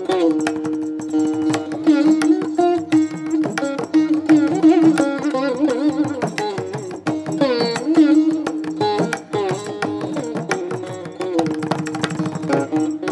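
Indian classical instrumental music: a plucked string melody with sliding, bending notes over a steady drone, with hand-drum strokes.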